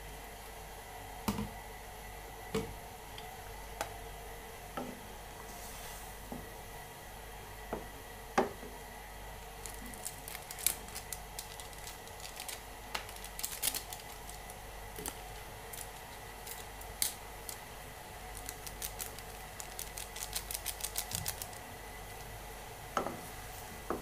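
Wooden spatula knocking and scraping in a non-stick frying pan while chicken wings simmer in water, over a faint steady hiss of simmering. Single sharp knocks come every second or so at first, then quick runs of light clicking in the second half.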